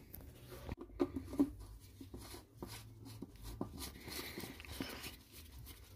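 Faint, scattered clicks and knocks of tools and metal exhaust parts being handled while a catalytic converter is fitted back in, with a soft rubbing rustle about four seconds in.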